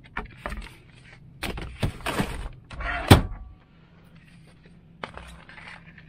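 Knocks and clatter of a bowl being taken down and handled in a small cab, with one loud clunk about three seconds in, a few lighter knocks before it and a single click near the end; a steady low hum underneath.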